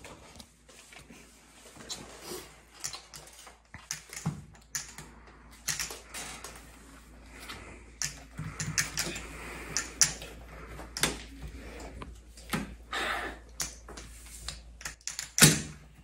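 Poker chips clicking and clacking together as a hand shuffles and stacks them, in irregular runs of sharp clicks, with a louder clack near the end.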